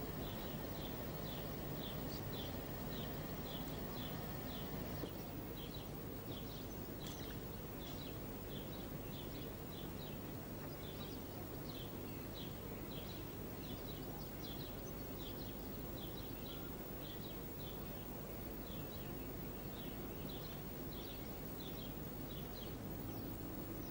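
Small birds chirping, short high chirps repeating about twice a second, over a steady low outdoor background noise.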